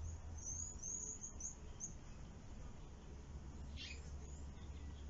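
Small birds chirping: a quick run of short high chirps in the first two seconds and a falling call about four seconds in, over a steady low rumble.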